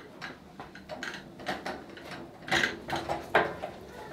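An embroidery machine on its wheeled metal stand being pushed across a concrete floor: irregular rattling and knocking, with a few louder clunks in the second half.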